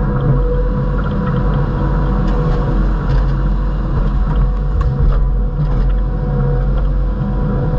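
Kubota SVL75 skid steer's diesel engine running steadily, with a few light knocks or clanks mixed in.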